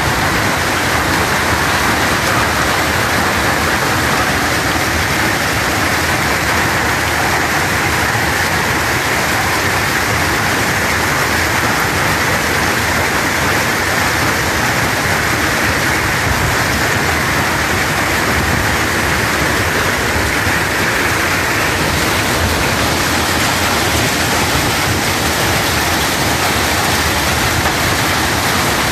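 Heavy hailstorm: hailstones and rain pelting the ground in a loud, steady, unbroken hiss.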